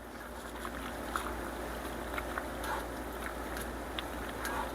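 Pan of creamy pasta sauce simmering: a steady low hiss with a few faint scattered ticks and pops.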